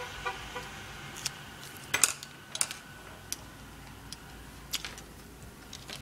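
Scattered sharp clicks and taps of small tools and parts being handled and set down on a hard desktop, the loudest about two seconds in, over a faint steady hum.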